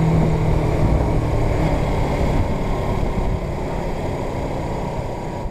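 Suzuki GS500 parallel-twin engine running while the motorcycle is under way, mixed with heavy wind rush over the mount, gradually getting quieter.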